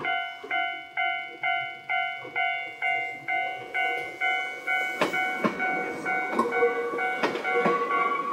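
Level-crossing warning bell ringing about twice a second. From about five seconds in, the wheels of a passing Nankai Kōya Line express train clatter over the rail joints beside it.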